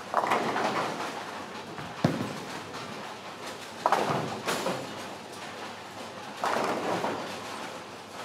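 Ten-pin bowling pins clattering as balls strike them on neighbouring lanes, three separate crashes each fading out within about a second, with a sharp knock about two seconds in.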